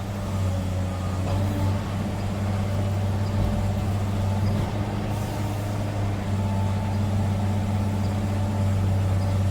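A hydraulic excavator's Cummins diesel engine running at a steady speed, a constant low drone.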